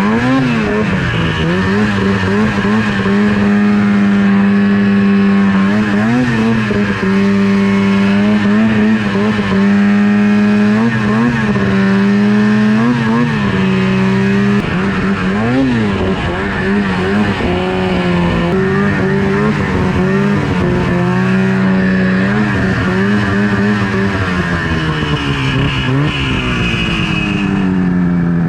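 Rebuilt 800 H.O. two-stroke twin engine of a 2004 Ski-Doo Rev snowmobile running steadily under way. The engine note swells up briefly and drops back several times, then falls lower near the end. The riders suspect the fresh motor is running a little rich.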